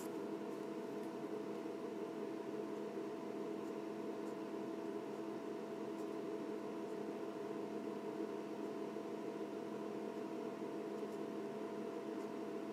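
Steady background hum holding several fixed tones, with a few faint high ticks.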